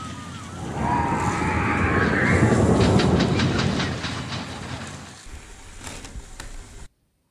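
LEGO roller coaster (set 10261) running: a plastic sledge rolling along the track with a rattling rumble that swells about a second in, with a fast clatter in the middle. It fades, then cuts off suddenly near the end.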